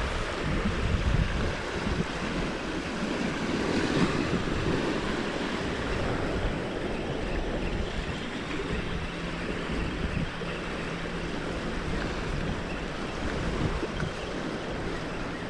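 Small waves breaking and washing up on a sandy beach, with wind buffeting the microphone in a steady low rumble.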